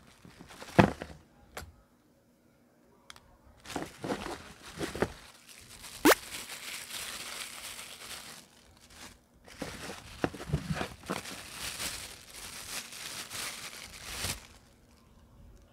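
Plastic wrapping crinkling and rustling in two long stretches as small parts are unwrapped by hand, with two sharp clicks, one about a second in and one about six seconds in.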